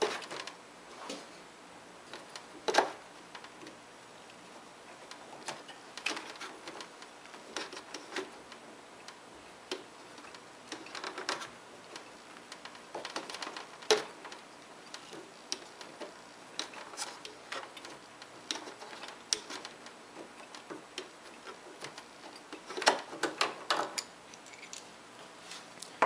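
Mini tubing cutter being turned around a small copper refrigerant line to cut off its pinched section, giving irregular light clicks and ticks as it is worked around the tube in short turns, with a cluster of louder clicks near the end.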